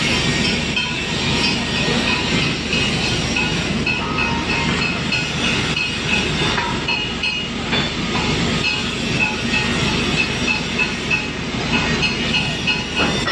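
Pipe welding and grinding on a 24-inch steel pipe: a stick (SMAW) welding arc crackling, mixed with angle grinders whining against the steel. The high whine comes and goes through the steady noise.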